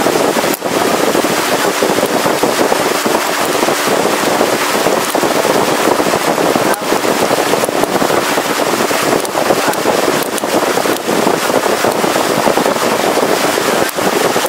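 Motorised wooden river longboat under way: engine noise, water rushing past the hull and wind buffeting the microphone blend into a loud, steady, crackling rush.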